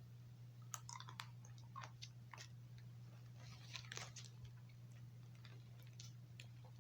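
Faint chewing of a cinnamon Mentos mint: irregular soft crunches and clicks as the candy is bitten and chewed, over a steady low hum.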